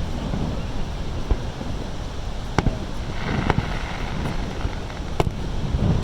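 Fireworks bursting overhead: about four separate booms a second or so apart, with a short crackle after the third, over a steady rushing background.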